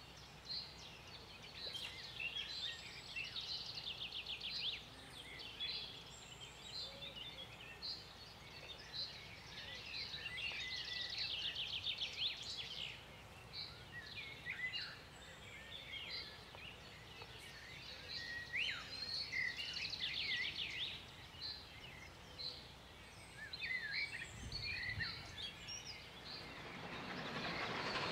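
Birds singing in spring woodland, many short chirps and several rapid trills. Over the last couple of seconds a steam train's approach comes up as a growing hiss.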